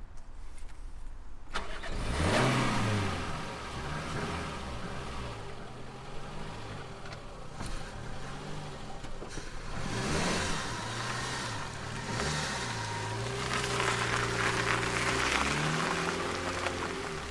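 Car engine starting about a second and a half in with a rising rev, then running with several more revs that rise and fall between steadier stretches.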